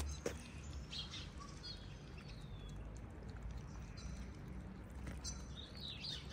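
Small birds chirping in short, high calls, one with a falling glide, over a steady low background rumble.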